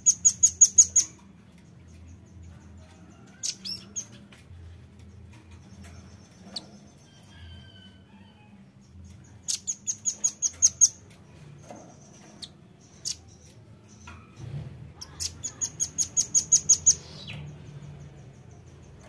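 Velvet-fronted nuthatch calling: quick runs of sharp, high chit notes, about eight to twelve notes in a second or so, heard three times with a shorter pair of notes between, and faint single chirps in the gaps.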